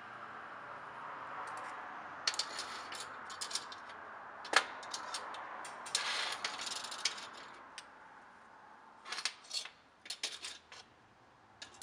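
Spoons, butter knives and other scrap-metal pieces clinking and tapping against a steel workbench as they are picked up, arranged and set down, in scattered sharp clicks, the loudest about four and a half seconds in and a cluster near the end. A faint steady hiss lies underneath for the first several seconds, then fades out.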